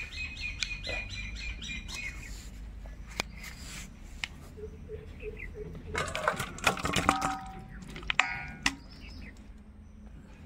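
Metal cookware knocking and scraping as chicken curry is tipped and scraped out of a metal kadai into a stainless steel bowl, the clatter loudest about two-thirds of the way in, with short ringing tones. A bird chirps rapidly near the start.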